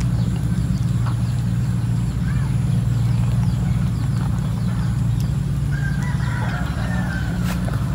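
A steady low mechanical hum, like a motor running, throughout. A chicken clucks about six seconds in, over faint ticks.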